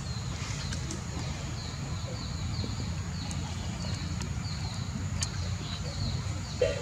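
Outdoor background: a steady low rumble under a string of short, slightly falling high chirps repeating a few times a second, with a brief louder squeak near the end.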